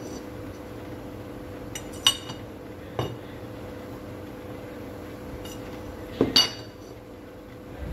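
Metal parts clinking and knocking as a flat metal plate and a drill chuck are handled and set down on the workbench: a clink about two seconds in, another a second later, and the loudest pair just after six seconds. A steady faint hum runs underneath.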